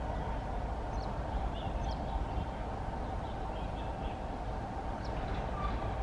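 Steady rumble of a passenger train approaching in the distance, with small birds chirping now and then over it.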